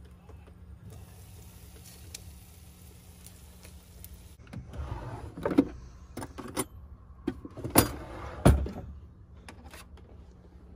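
Faint sizzle of eggs frying in a covered pan on a gas stove. About halfway in comes a run of clattering knocks: a kitchen drawer sliding open and cutlery rattling as a fork is taken out, with a few softer clicks near the end.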